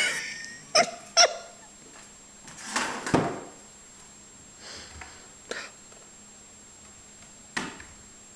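A ferret hauling a mobile phone across a tile floor and up carpeted stairs: a handful of short knocks and scrapes of the phone against the floor and steps. The two loudest come close together about a second in.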